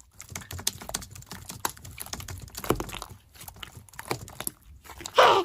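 Quick, irregular light taps and clicks, several a second, standing for hurried running footsteps. A short, louder rush of noise comes just before the end.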